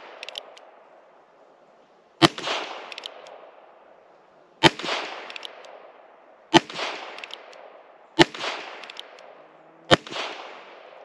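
Heritage Rough Rider .22 LR single-action revolver firing Winchester Super X 40-grain Power Point rounds: five sharp shots about two seconds apart, each ringing out for about a second, with light clicks after each shot. Every round fires with no misfire.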